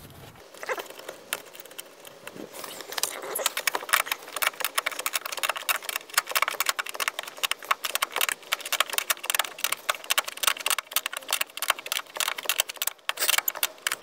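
Fast, irregular metallic clicking and clatter from hand work on a car seatbelt retractor's mounting bolt, thickening after the first few seconds.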